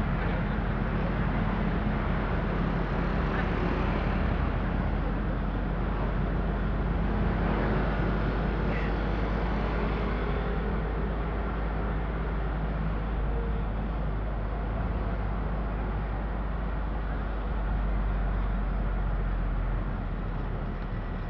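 Steady car driving noise in city traffic: engine and tyre rumble with a constant low hum, and the surrounding traffic mixed in.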